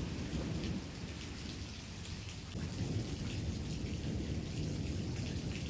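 Steady rain falling, with a low rumble of thunder underneath.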